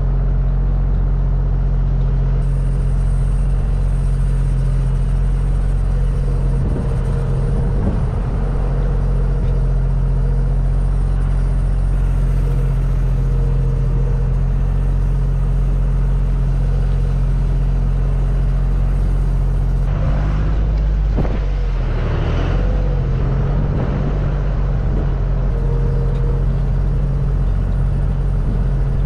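Tractor engine running steadily under way, a loud, even low drone, with a short spell of rattling and clanking about twenty seconds in.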